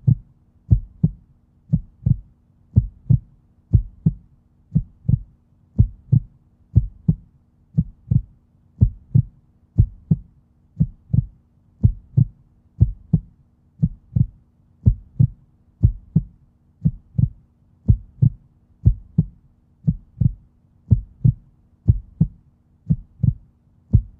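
Heartbeat sound effect: paired low lub-dub thumps repeating steadily about once a second, over a faint steady hum.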